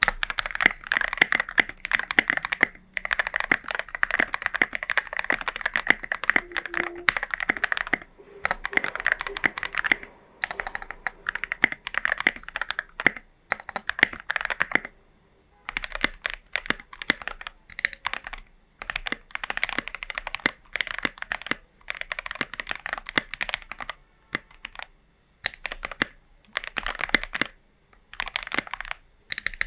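Fast typing on a Glorious GMMK Pro mechanical keyboard with tall SA-profile keycaps, the keys clacking as they bottom out. The typing comes in runs of a few seconds with brief pauses between them, the longest about halfway through.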